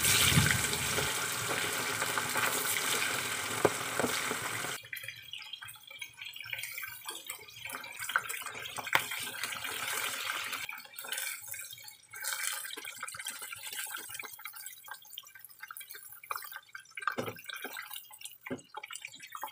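Chicken pieces deep-frying in hot oil: a dense, loud sizzle that drops suddenly about five seconds in to a thinner sizzle with scattered pops and crackles.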